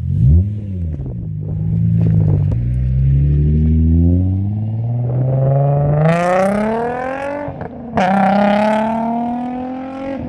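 Infiniti G35's 3.5-litre V6 breathing through a 3-inch exhaust with test pipes in place of the catalytic converters, accelerating hard. A short rev near the start is followed by a note that climbs steadily for several seconds, drops at an upshift about eight seconds in, then climbs again.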